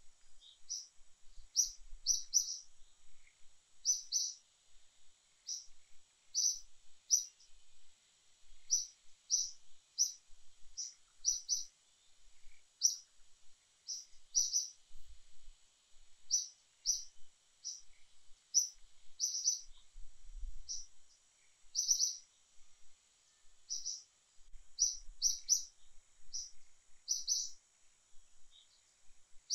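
A bird calling in short, high chirps, often two or three in quick succession, repeated about once a second, over a faint steady high hiss.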